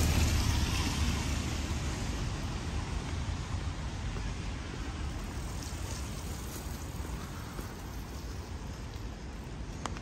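A car passing on a wet road. Its tyre hiss is loudest at the start and fades over the first few seconds, leaving a steady hiss of background traffic.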